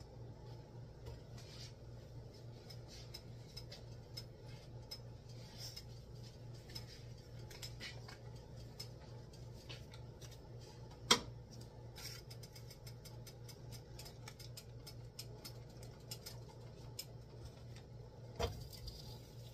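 Kitchen handling sounds at the stove: a paper wrapper rustling and small utensil clicks over a steady low hum, with a sharp knock about eleven seconds in and a smaller one near the end.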